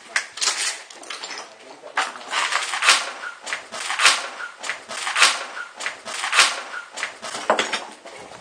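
Slow footsteps, about one a second.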